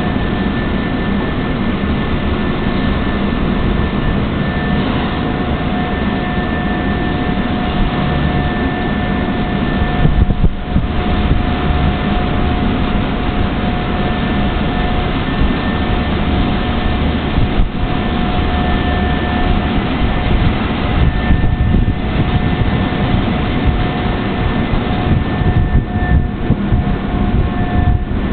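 Train-washing machine at work on a train: a loud, steady rushing noise with two steady whining tones running through it.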